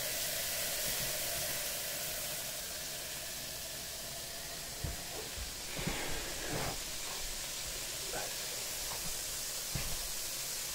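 Liquid nitrogen boiling off in copper LN2 pots at full pot, a steady hiss. A few light knocks sound in the middle and once near the end.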